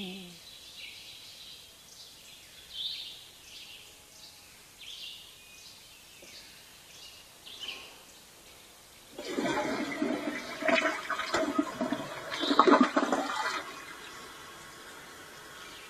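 Faint high chirps repeating over a quiet background, then about nine seconds in a loud rush of water-like noise lasting about four seconds, loudest just before it fades.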